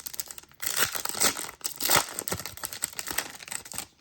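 Foil trading card pack wrapper being torn open and crinkled in the hands, a dense crackling that stops just before the end.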